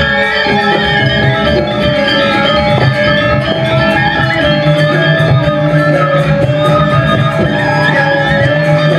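Balinese gamelan gong kebyar playing live: many bronze metallophone notes ringing and overlapping in a steady stream of melody, over low drum strokes.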